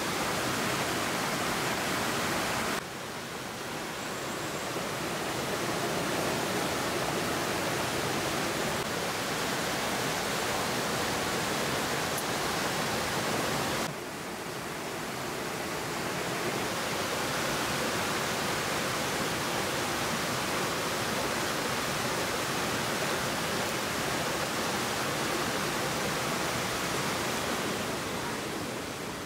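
Rushing water of a rocky stream tumbling over boulders, a steady hiss. It drops suddenly about three seconds in and again about fourteen seconds in, swells back each time, and begins to fade near the end.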